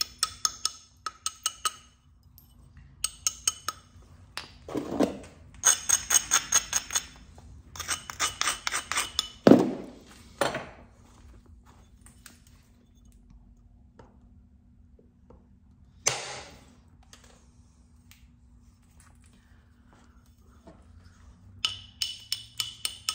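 Heat-treated chert knife blade clinking with a glassy ring under quick runs of light strokes from a small bopper as its edge is worked. The runs come in several bursts with pauses between, and a couple of duller thumps come in among them.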